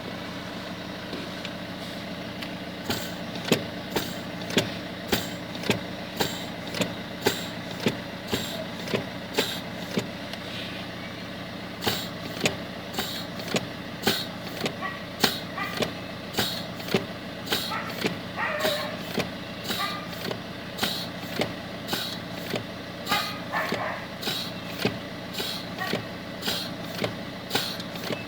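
Fiat Grande Punto idling while short hisses come from the brake pedal, repeating about one to two times a second with a pause about ten seconds in. A hiss at the brake pedal is typical of a vacuum leak in the brake servo.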